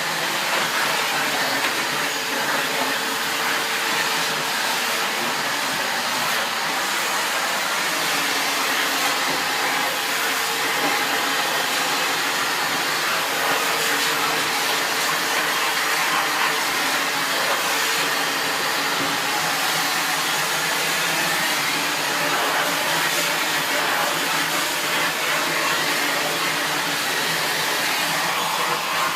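SEBO Felix bagged upright vacuum cleaner running steadily, its motor noise even and unbroken.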